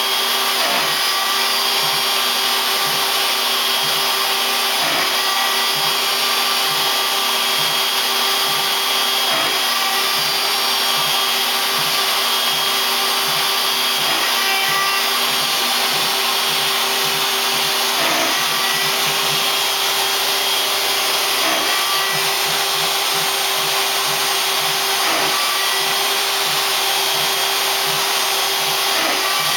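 DeWalt compact router on a CNC machine spinning a 1/8-inch single O-flute bit at about 16,000 rpm, milling quarter-inch 6061 aluminum plate at a 0.04-inch depth of cut: a steady whine with a constant cutting hiss. A dust-collection vacuum runs along with it.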